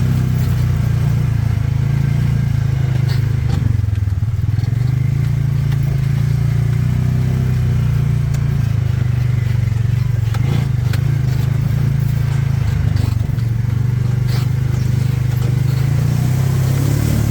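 A vehicle engine running steadily, its pitch rising and falling a little as it drives, with occasional short knocks and clicks over it.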